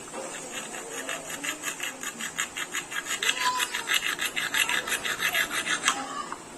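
Wood being rasped by hand in quick, even back-and-forth strokes, about five a second, stopping about six seconds in.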